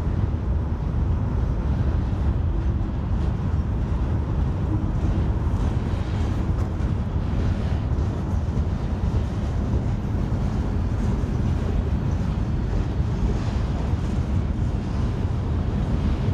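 Steady low rumble of a passing freight train's diesel locomotives heard from a distance, mixed with wind buffeting the microphone.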